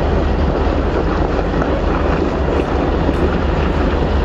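Pickup truck engine running hard under load while its wheels spin on mud and ice, with the truck in four-wheel-drive lock, straining to pull a trailer of over 13,000 lb.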